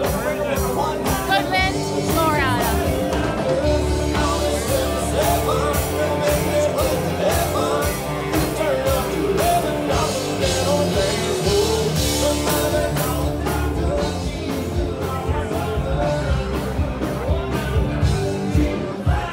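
Live rock-and-roll band playing, with a singer over a steady drumbeat.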